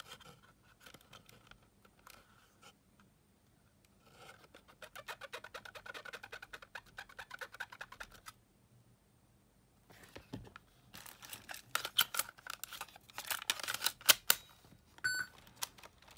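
Alcohol-soaked cotton swab scrubbing the tape head of a Sony Walkman FX483 cassette player, in two spells of rapid scratchy rubbing, cleaning a head that had been giving muffled playback. A short electronic beep sounds near the end.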